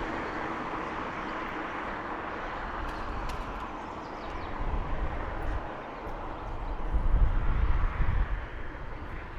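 Outdoor vehicle noise: a steady rushing sound that slowly fades over the first few seconds, followed by uneven low rumbling that comes and goes twice.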